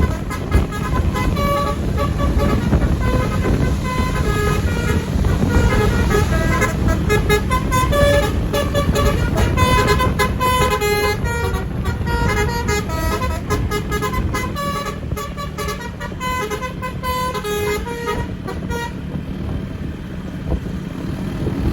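Basuri 'telolet' bus horn tooting quick melodic runs of short notes that jump in pitch, over a steady low rumble. The notes die away near the end, leaving the rumble.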